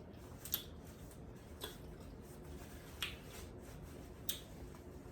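Four short, sharp clicks, spaced one to one and a half seconds apart, over a quiet background.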